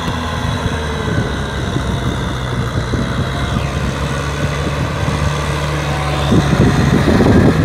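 Kubota M6040 SU tractor's four-cylinder diesel engine running steadily under load while working a muddy rice paddy. It grows louder near the end as the tractor comes closer.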